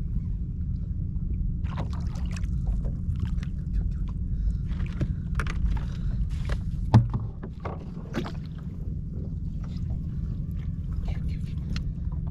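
Sounds from a fishing kayak on the water: scattered short clicks and knocks over a steady low rumble, with one sharp knock about seven seconds in.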